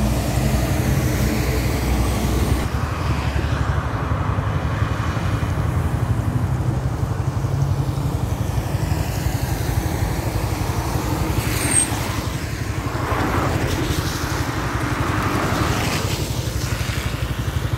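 Steady low engine rumble with wind and road noise from riding along a wet road, with a few swells of passing traffic in the second half.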